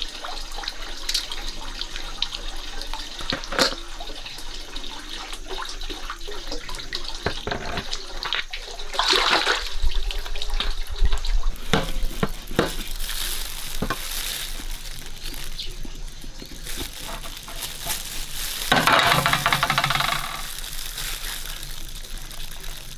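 Water splashing and pouring, with scattered knocks and clinks of kitchen handling. There is a louder rush of water about nine seconds in and again at about nineteen seconds.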